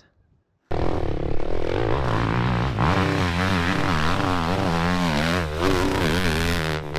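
After a moment of near silence, a dirt bike engine cuts in suddenly, revving hard under load as it climbs a steep hill, its pitch rising and falling over and over as the throttle is worked.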